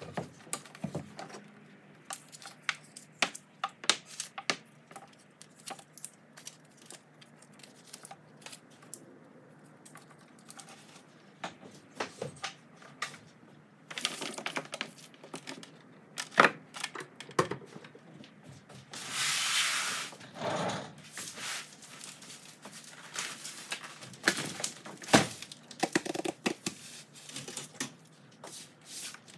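A cardboard shipping box being opened by hand: scattered clicks, knocks and crinkling of packing, with one long tearing sound of about a second and a half some two-thirds of the way through, like packing tape being ripped off.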